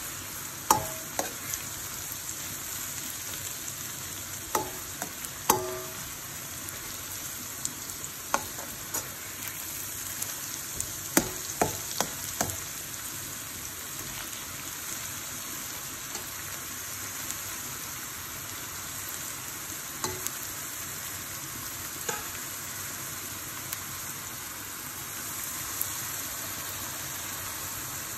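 Blended onion sizzling steadily as it sautés in hot oil in a wok, with a metal spoon clinking and scraping against the pan now and then, most often in the first half.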